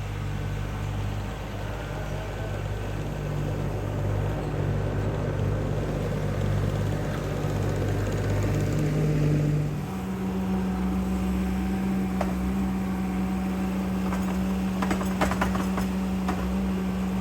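Skid steer engine running steadily, its pitch stepping up about ten seconds in as the throttle is raised, with a few metallic clanks near the end.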